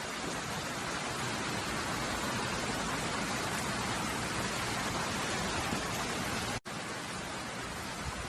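Heavy rain falling steadily in a tropical storm, a dense even hiss. It cuts out for an instant near the end, then resumes.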